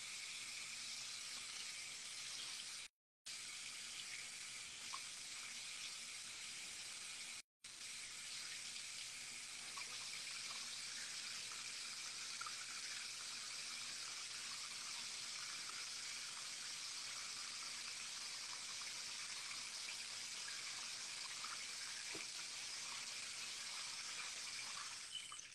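Running water: a steady hiss, cut by two brief dropouts to silence about three and seven and a half seconds in.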